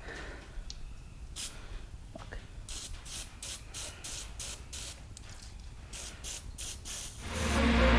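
An aerosol spray can giving a series of short squirts, about ten quick hisses in two groups. Music fades in near the end.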